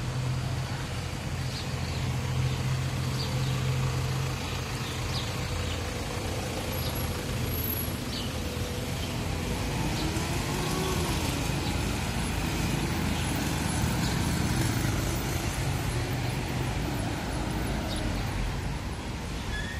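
Street traffic: car and motorbike engines running and passing. A low, steady engine hum lasts for about the first four seconds, and about ten seconds in one passing vehicle's pitch rises and then falls.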